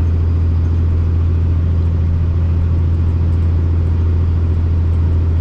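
International ProStar semi truck's diesel engine and drivetrain running with a steady, unchanging low drone.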